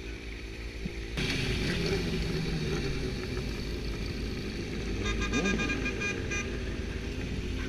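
Steady engine and traffic noise, with a vehicle horn honking in a quick run of short beeps about five seconds in, lasting about a second and a half.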